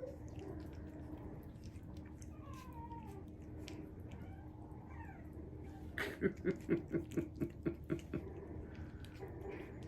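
Havanese dog whining with faint squeaks, then a rapid run of about ten short, high yips, roughly four a second, about six seconds in.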